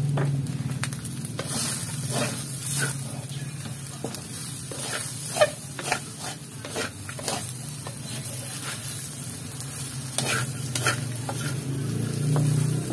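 A wooden spatula stirs and scrapes fish cake slices and carrot strips around a metal wok while the oil sizzles. Irregular clicks and scrapes of the spatula on the pan run throughout, with one sharp knock about five seconds in, over a steady low hum.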